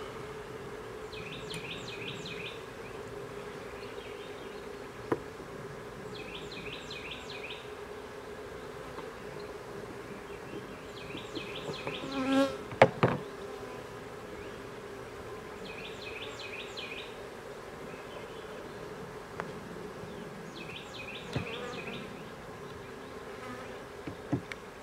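Honey bees buzzing as a steady low hum around an opened nuc box and hive. About halfway through come a few sharp knocks, and there are lighter clicks near the end. A short high chirping phrase repeats about every five seconds.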